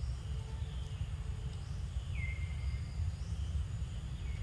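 Forest ambience: a steady low rumble of outdoor noise, with a bird's short whistled notes, each falling in pitch and then held briefly, repeating about three times.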